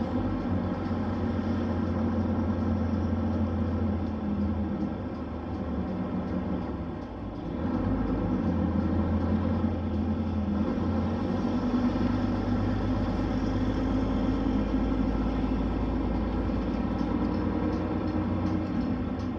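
Diesel engine of a Nissan Diesel city bus with a Fuji Heavy Industries 7E body, heard from inside the passenger cabin while riding. It runs steadily; its note drops about seven seconds in and picks up again a second later.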